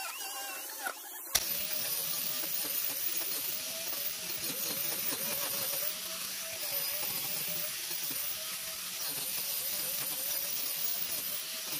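Angle grinder with a wood-carving disc cutting into a pine board: a high motor whine whose pitch wavers as the disc bites and eases, over a steady hiss of wood being ground away. A sharp click about a second in.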